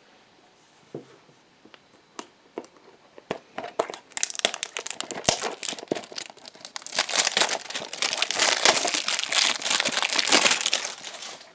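Crinkly packaging being handled and crumpled: a few scattered clicks and rustles at first, then about seven seconds of dense crinkling from about four seconds in.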